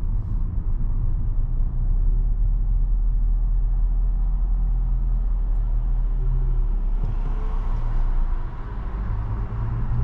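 Engine and road noise of a Ford car heard from inside its cabin while driving, a steady low rumble that eases off slightly about eight and a half seconds in.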